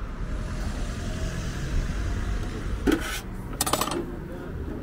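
Steady low street rumble with a vehicle driving past. About three seconds in comes a sharp click, then a brief clatter of clicks, from metal kebab skewers being handled on a charcoal grill.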